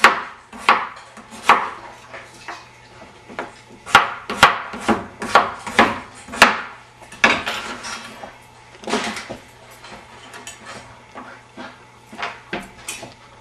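Knife slicing russet potatoes with the skin on, each cut ending in a sharp knock on the cutting board. The knocks come irregularly, about two a second at their quickest and more spaced out near the end.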